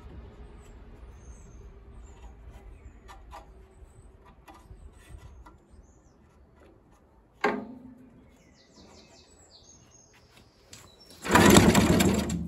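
Villiers petrol engine on a cement mixer pulled over once on its recoil starter about halfway through, turning over briefly without firing, among faint clicks of handling. Birds chirp, and near the end a loud burst of noise lasts about a second.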